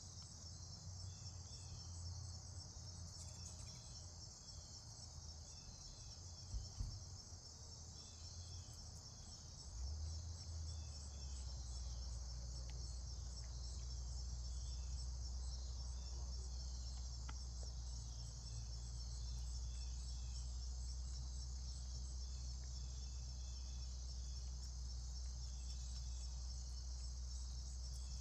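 Steady chorus of insects, a continuous high pulsing trill, with scattered short chirps above a low rumble that grows louder about ten seconds in.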